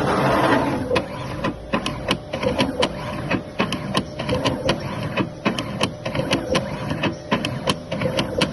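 Automatic CNC-controlled LED soldering machine running: a steady motor hum with level tones and sharp mechanical clicks several times a second as it moves. There is a brief hiss at the start.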